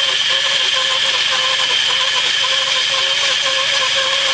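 Homemade lumber mill running, a steady whine from its electric motor and spinning saw blade.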